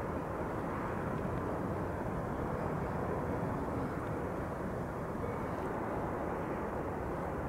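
Distant jet engine noise: a steady low roar with no rise or fall.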